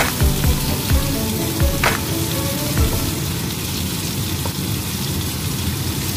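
Prawn and chicken satay skewers sizzling steadily as they fry in oil in a nonstick pan. There are a few light knocks in the first three seconds as tongs turn them.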